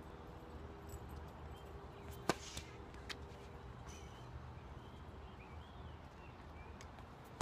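Tennis ball struck by rackets and bouncing on a hard court: a sharp pop about two seconds in, the loudest, and a few fainter knocks.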